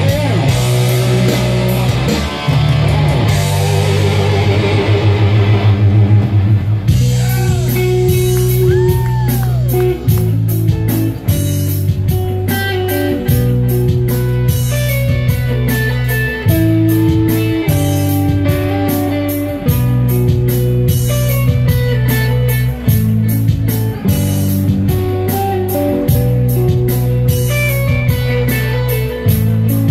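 Live rock music: a solo electric guitar played loud over a steady backing drum beat, with sustained melodic notes and a few pitch bends. About seven seconds in, it moves from a held, ringing chord into a rhythmic riff with the beat.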